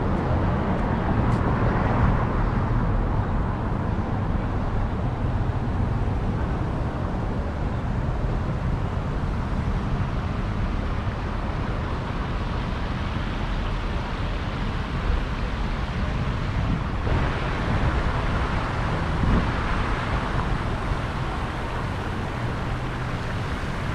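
Steady street ambience dominated by traffic on a busy multi-lane boulevard, an even rush of passing cars.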